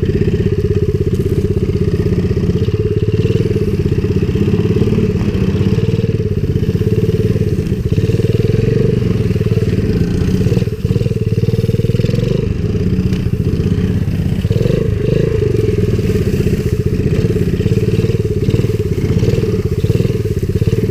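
Small four-stroke single-cylinder pit bike engine running under way on a trail ride, its pitch rising and falling with the throttle. There is a brief drop in loudness about eleven seconds in.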